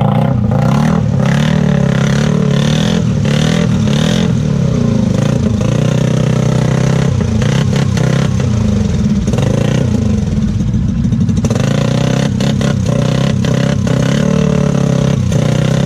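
Can-Am Outlander 450's single-cylinder engine revving hard and unevenly as the ATV churns through deep mud, with irregular clattering and knocks from the spinning mud tyres and machine. The exhaust note sits low in the mud water and has been likened to "Shrek farting in a bathtub with 3 inches of water in it."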